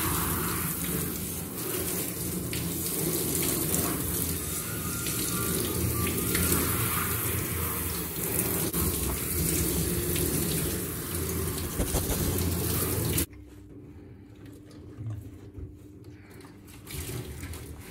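Handheld shower sprayer running, water spraying onto a wet dog's short coat in a stainless steel grooming tub. The water sound cuts off suddenly about thirteen seconds in, leaving only faint, quieter sounds.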